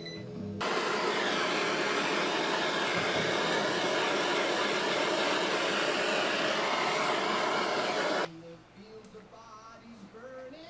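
Electric heat gun blowing steadily, switched on about half a second in and cut off abruptly near the end, heating the transmission housing for bearing fitting.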